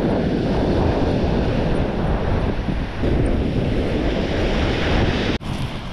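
Strong wind buffeting the microphone over surf breaking and washing up a shingle beach, a steady rumbling rush; the sound cuts out for an instant near the end.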